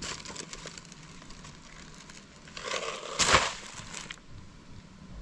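Rustling, crunching handling noise, with a louder crunching burst about three seconds in.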